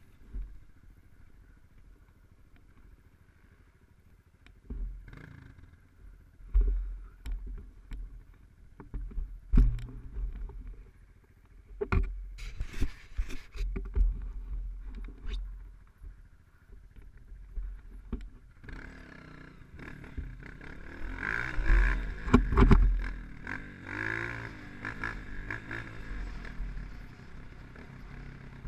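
Dirt bike riding over a rough dirt trail: the engine runs under wind noise, with repeated knocks and thumps from the bumps. About two-thirds of the way in, the engine and wind grow louder and fuller.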